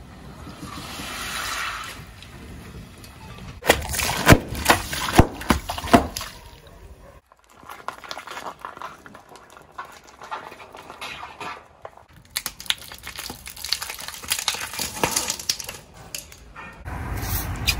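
A car tyre rolling slowly over and crushing a series of objects — a glitter-covered floral-foam block, frosted cupcakes in foil cases, candies in plastic blister strips — with squashing, crunching and bursts of sharp crackling and popping, broken by short quieter gaps.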